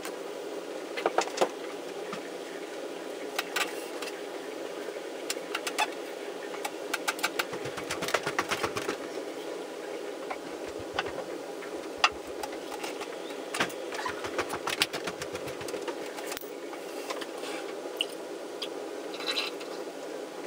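A steady mechanical-sounding hum runs under scattered clicks, knocks and low thumps as a person crawls and shifts on the floor around a wooden table. Near the end, milk is poured from a carton into a glass.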